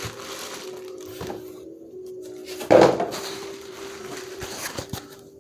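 Handling noise from a car stereo head unit's packaging being opened by hand: scattered clicks and knocks, with one loud crunch of packing material about three seconds in. Faint steady tones run underneath.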